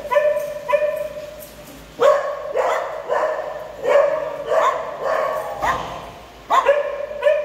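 A dog barking repeatedly in high-pitched barks, about two a second, with a short break about a second in.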